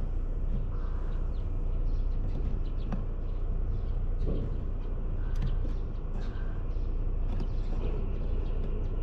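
Steady low outdoor rumble, with a few faint bird calls over it.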